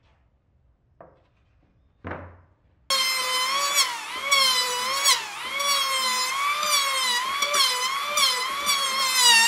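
Electric hand planer cutting a wooden panel. Its motor starts about three seconds in and runs with a high whine that repeatedly sags and recovers as the blades bite into the wood. A soft thump comes just before it.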